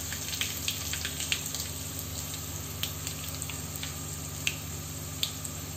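Hot oil sizzling in a frying pan of tempering spices (cumin, mustard seeds, curry leaves, dried red chillies and garlic) with the heat just switched off, an even sizzle with scattered small pops and crackles.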